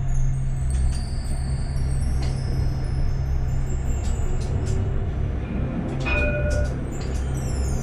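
Tram in motion: steady low hum of its traction equipment over rolling noise on the rails, with a short ringing tone about six seconds in.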